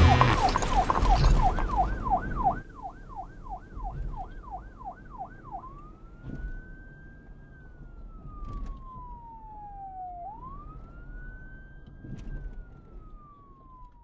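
Police car siren, first in fast yelp mode, a quick repeating up-and-down sweep, then switching about five and a half seconds in to a slow wail that rises and falls twice. Over the first two and a half seconds a louder noisy sound plays over it and cuts off abruptly.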